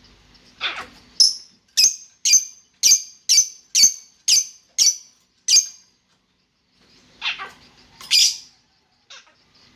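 Pet lovebird calling: a run of about nine sharp, high chirps at roughly two a second, then after a short pause two harsher, rasping squawks near the end.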